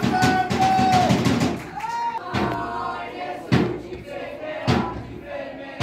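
Voices shouting on an outdoor football pitch, with long held calls loudest in the first second or so. A few sharp thuds follow, one about every second, the kind a football makes when kicked.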